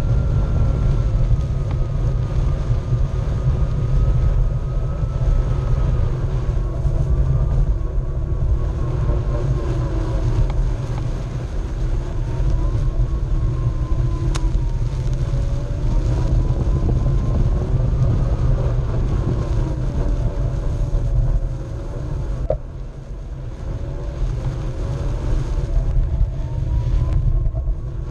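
Onewheel electric board riding over grass: the hub motor's whine rises and falls in pitch as the speed changes, over a heavy low rumble of the tyre and air on the board-mounted microphone. The rumble eases for a couple of seconds about three-quarters of the way through.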